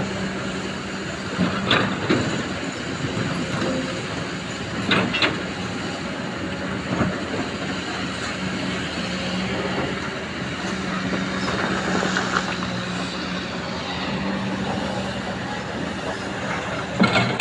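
Excavator's diesel engine running steadily, with a few loud knocks about 2 and 5 seconds in and a cluster near the end.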